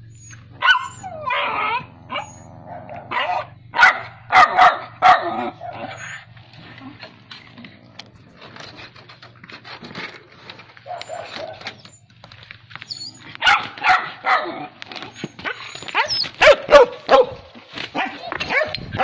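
Dogs barking in loud, irregular bursts, mostly in the first five seconds and again in the last few seconds, as they go after a wild cat.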